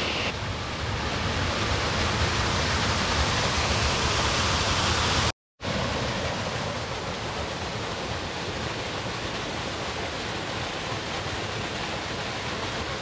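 Small mountain stream tumbling down a rocky waterfall cascade, a steady rush of water. It breaks off for a moment about five seconds in, then carries on.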